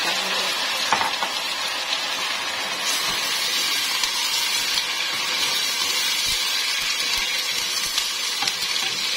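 Mutton pieces sizzling steadily as they fry in hot oil in a stainless steel pot, stirred with a wooden spatula. A light knock about a second in.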